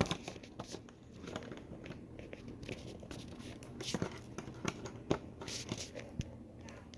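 Small plastic toy figures being handled by hand: scattered light clicks and rustling, with a few sharper knocks around four and five seconds in.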